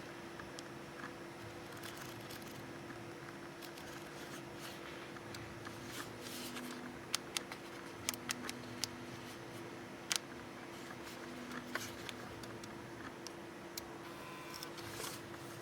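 Handling noises: a handful of sharp clicks and taps, bunched together in the middle, over a steady low hum.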